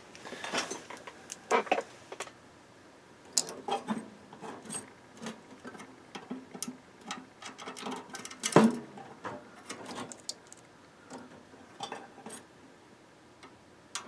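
Scattered small clicks and rattles of wire connectors and metal parts being handled at a microwave oven's magnetron terminals, with one sharper click a little past halfway.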